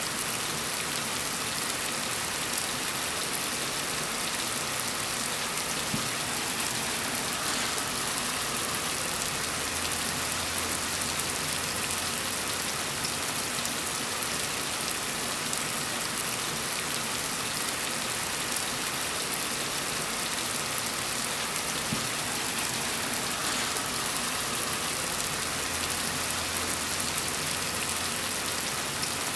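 Heavy rain pouring steadily, a dense even hiss of drops falling on surfaces. A faint low rumble swells underneath twice.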